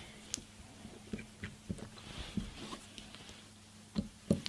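Faint small clicks and scrapes as the plastic throat of a water softener injector is threaded by hand into the injector body, with a couple of louder knocks near the end. A low steady hum sits underneath.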